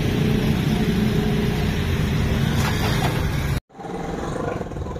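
Steady engine hum of a motor vehicle running close by, which cuts off suddenly about three and a half seconds in, leaving quieter street noise.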